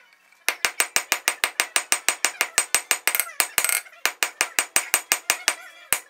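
Hand hammer forging a red-hot steel bar on an anvil: a fast run of blows, about six a second, each with a high metallic ring. The blows break off briefly about three seconds in, start again, and pause once more near the end.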